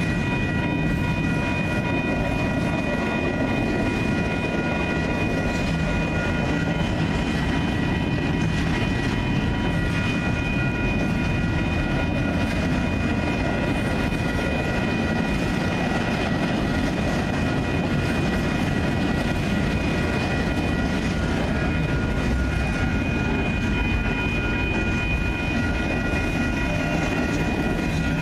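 A freight train of intermodal well cars rolling steadily past a grade crossing, its wheels giving a continuous rumble and clatter on the rails. Several steady high-pitched tones ring above the rumble, and some of them drop out part way through.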